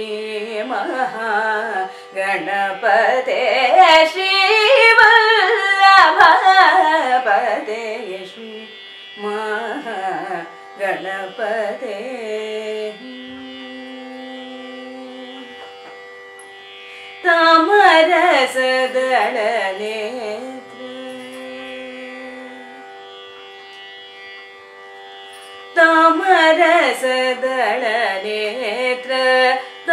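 A woman singing a Carnatic kriti in raga Abhogi, solo voice in long ornamented phrases over a steady drone. The voice drops out twice for a few seconds while the drone carries on.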